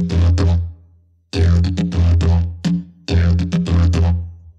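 Didgeridoo played in short rhythmic phrases: a low drone with bright overtones and sharp accents. Three phrases, each about a second long, broken by brief pauses.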